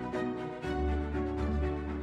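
Background music: sustained chords over a bass line, with a steady beat; the bass note changes about half a second in.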